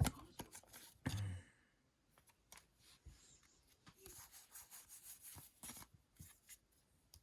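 Foil trading-card booster pack being handled and torn open: soft rubbing, rustling and small clicks, with a sharp click at the start and a heavier thump about a second in.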